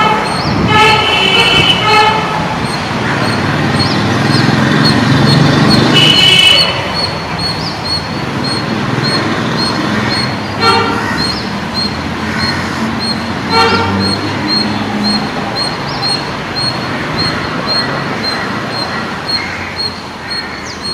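Horn of a diesel locomotive at the head of a departing passenger train. It sounds two blasts in the first two seconds, a stronger one about six seconds in, and two short toots near eleven and fourteen seconds. Under the horn, the rumble of the coaches rolls away and slowly fades.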